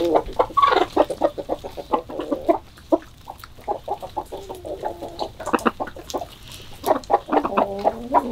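A flock of hens and roosters clucking, a run of short repeated clucks from several birds that thins out in the middle and picks up again near the end.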